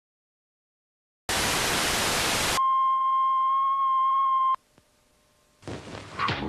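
A second of television static hiss, then a steady test-tone beep of the kind played with colour bars, held for about two seconds and cut off abruptly. Another sound starts just before the end.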